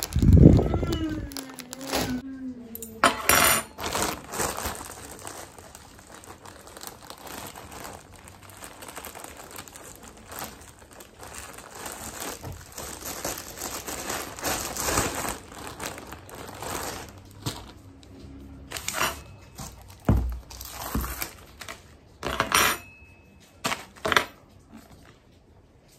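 Plastic bread bag crinkling and rustling in irregular bursts as it is handled and slices are taken out. In the first two seconds a loud pitched sound falls in pitch.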